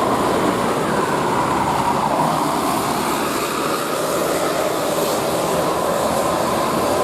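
Large coach bus driving past uphill: steady engine and road noise, with no horn sounded.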